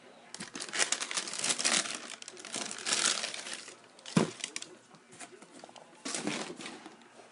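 Tissue paper in a shoebox crinkling as it is pulled open from around the shoes. The crinkling comes in dense bursts for the first three seconds or so, with a single dull knock about four seconds in and another short burst of crinkling near the end.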